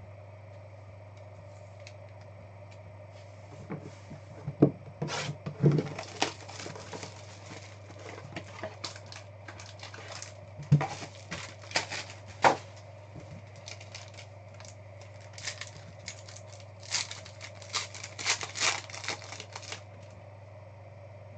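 Foil trading-card pack wrappers (Panini Optic Contenders basketball) being torn open and crinkled, with cards handled, in three spells of crackling: a few seconds in, around the middle and near the end. A steady low hum runs underneath.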